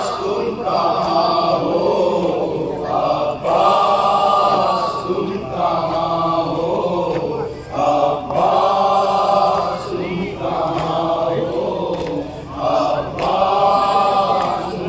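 A group of men chanting a noha, a Shia Muharram lament, in unison without instruments, in short repeated phrases about every two seconds.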